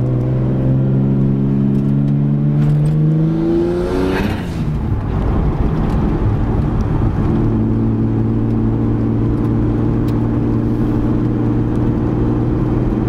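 Turbocharged RB25 2.5-litre straight-six in an S13 Silvia, heard from inside the cabin: the engine pulls up through the revs for about four seconds, a brief burst of noise comes as the revs break off, then it settles into steady cruising revs.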